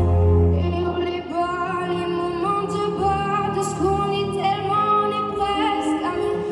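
A song with a woman singing held, wavering notes over instrumental accompaniment.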